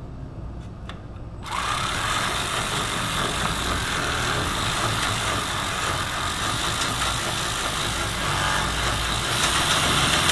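An impact wrench runs continuously from about a second and a half in, hammering on a hub or axle fastener. Its owner finds it does not have the torque he expected.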